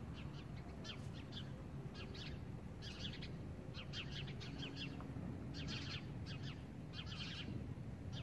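Small birds chirping in quick bursts of high chirps, about one burst a second, over a low steady rumble.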